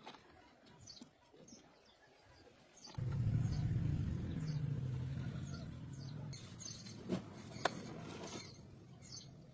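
An engine starts up about three seconds in and runs with a steady low rumble that eases off toward the end, with a couple of sharp clicks near the end. Birds chirp in the background.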